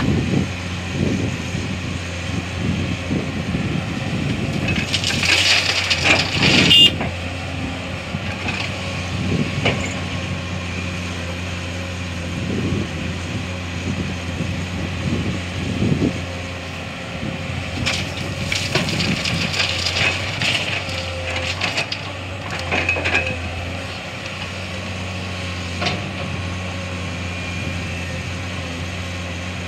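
Hydraulic excavator's diesel engine running steadily while its bucket dumps sand and gravel into a steel tipper truck body. The load pours and rattles into the bed twice, about five seconds in and again around eighteen seconds in, with a few duller knocks between.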